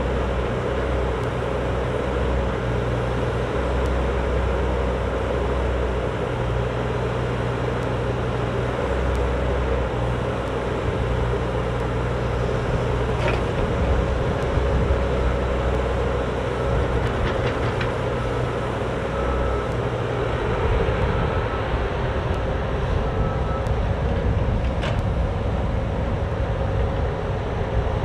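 Cat 304D mini excavator's diesel engine running steadily under load as the boom, bucket and tracks are worked, with a steady tone over the engine's low drone. A few short knocks about halfway through and near the end.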